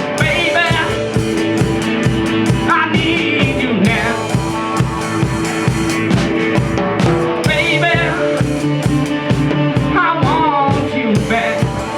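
Rock band playing an instrumental stretch: a drum kit keeps a steady beat under bass and guitar. A wavering, bending lead line rises over it four times.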